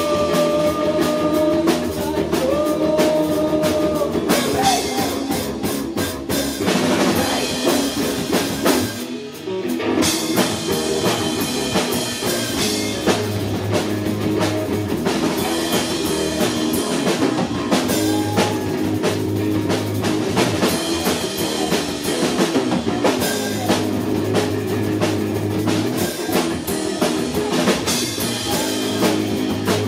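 Live rock band playing: drum kit and distorted electric guitars. Held guitar notes ring over the drums at the start, the sound drops out briefly about nine seconds in, and then the full band comes back in.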